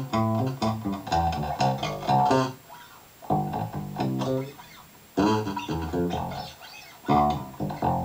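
Funk dance-pop instrumental break: guitar and bass guitar playing a riff in four short phrases, with no vocals and no drums.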